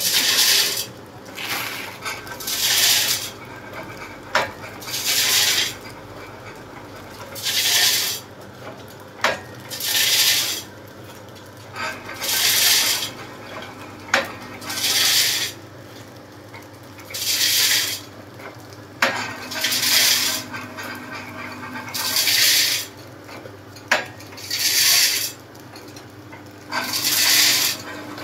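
Automatic namkeen pouch packing machine running in a steady cycle: about every two and a half seconds a hissing rattle as a dose of snack pieces pours down into the pouch, with a single sharp mechanical click between each pour.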